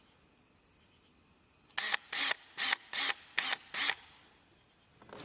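A quick run of six short, sharp mechanical rasps, evenly spaced, about two seconds in, from work on a front door lock being fitted, with a fainter knock near the end.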